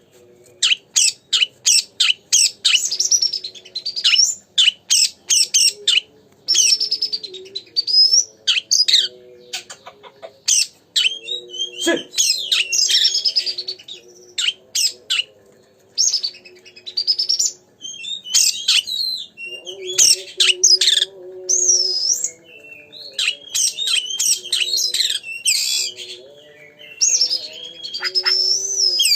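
Oriental magpie-robin (kacer) in full song: fast runs of loud whistled phrases, sharp chirps and sweeping trills with short pauses, over fainter, lower drawn-out tones.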